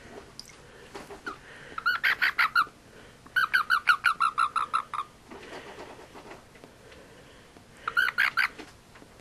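A frog held in the hand calling in three bursts of quick, evenly spaced chirps, about nine a second. The first burst comes about two seconds in, a longer one follows just after, and a short one comes near the end.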